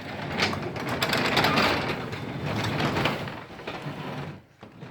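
Sectional garage door moving along its track, rollers and panels rumbling and rattling with many small knocks, then stopping about four and a half seconds in. The door sticks and rubs at one spot in its travel.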